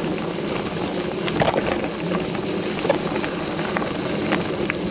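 Wind buffeting the microphone over the steady rolling noise of a loaded touring bike on the move, with a few brief clicks and rattles.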